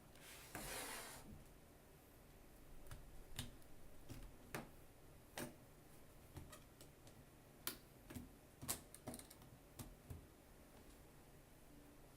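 Hands handling laptop screen parts: a short rustle near the start, then scattered light plastic clicks and taps.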